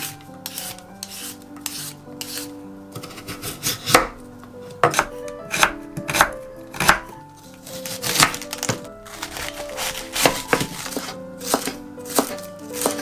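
A vegetable peeler scraping a carrot, then a ceramic kitchen knife chopping carrot strips and shredding red cabbage on a wooden cutting board: sharp knocks of the blade on the board at an uneven pace. Light background music plays under it.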